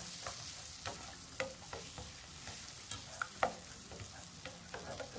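Eggs sizzling in butter in a copper ceramic-coated nonstick frying pan while a slotted spatula breaks them up, its strokes scraping and tapping against the pan in irregular short clicks over the steady sizzle.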